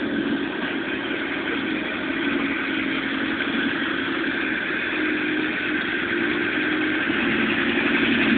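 An engine running steadily at idle, with a low hum that comes and goes slightly.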